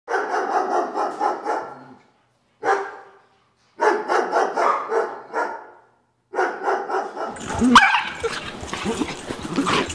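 Two dogs, a Brittany and a Vizsla, play-fighting: rough growling and barking in bursts of a second or two with short silent gaps, then without a break from about six seconds in, with a sharp high yelp near eight seconds in.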